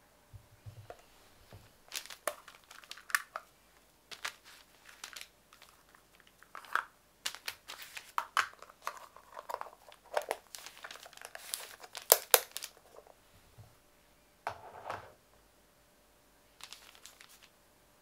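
Pattern paper crinkling and rustling in irregular bursts as it is handled, mixed with sharp clicks from a small clear plastic case being opened and fiddled with.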